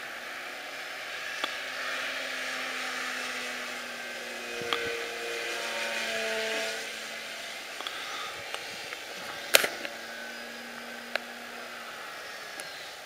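Electric motor and propeller of a radio-controlled Yak 54 aerobatic plane whining overhead, its pitch rising and falling as it flies. A sharp click about two-thirds of the way through.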